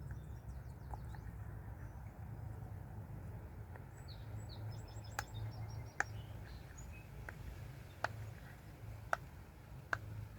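Bubbles of a silicone octopus pop-it fidget toy being pressed, giving single soft pops about a second apart, mostly in the second half. Birds chirp near the start and around the middle over a steady low background rumble.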